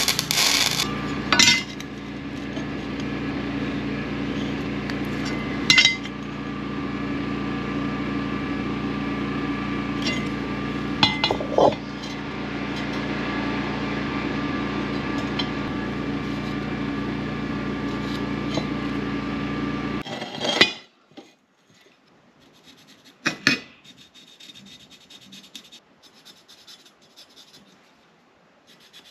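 Wire-feed welding arc crackling for about a second and a half at the start, then a steady electrical hum with a few knocks of steel on the bench. About two-thirds of the way through the hum stops, leaving only light taps and rubbing as square steel tubing is handled.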